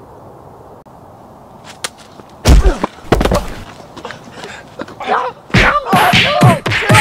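A scuffle: two heavy thumping blows about two and a half seconds in, then from about five seconds a rapid run of whacks mixed with loud yelling cries.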